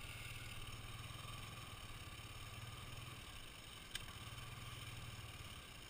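ATV engine idling with a steady low hum, briefly weaker a little past halfway through. A single sharp click comes about two-thirds of the way in.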